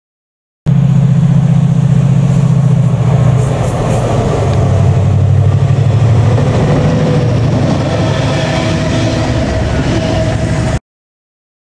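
Pair of Class 68 diesel-electric locomotives, each with a Caterpillar V16 engine, running loud and steady as they approach and pass close by, with wheel and rail noise rising as they go past. The sound starts abruptly just under a second in and cuts off abruptly near the end.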